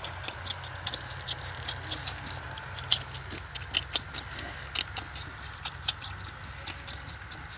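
A lamb sucking milk from a feeding bottle: quick, irregular wet smacking clicks of its mouth on the bottle's nipple, over a steady low hum.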